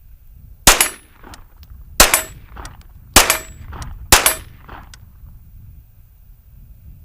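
Kriss Vector SDP 9mm pistol firing four single shots, roughly a second or so apart, each followed by a short echo.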